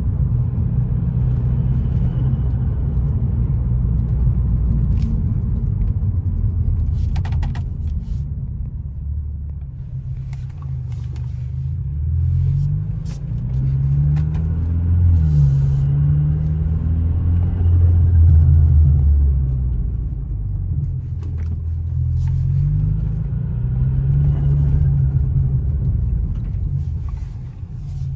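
BMW F30 328i's turbocharged four-cylinder engine heard from inside the cabin while driving. Its note climbs and drops twice as the car accelerates and shifts, with a few short clicks scattered through.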